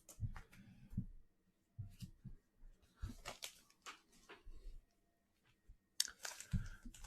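Faint rustling and light clicks of baseball cards being slid into plastic sleeves and handled, then about six seconds in a louder crinkling of a foil card pack wrapper being handled.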